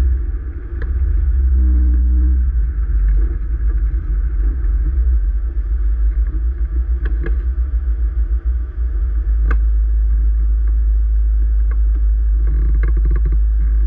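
Chevrolet Corvette C5 Z06's LS6 V8 idling, a steady deep rumble heard from inside the cabin, with a few light clicks.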